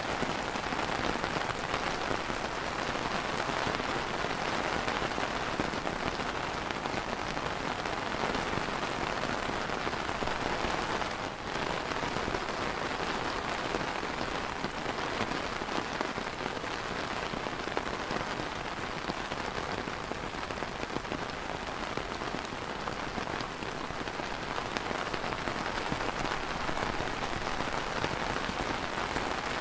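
Light rain falling on a clear plastic umbrella canopy: a steady, dense hiss of drops that dips briefly about eleven seconds in.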